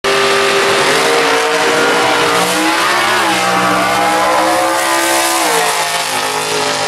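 Two drag-racing cars' engines at full throttle as the cars accelerate down the strip side by side, the engine pitch climbing and dropping back twice as they shift gears.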